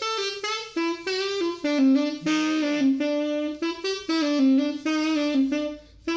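Woobasax bamboo saxophone, played with an alto saxophone mouthpiece and reed, playing a melodic phrase of short, separate notes, with a breathier, bending passage about two seconds in.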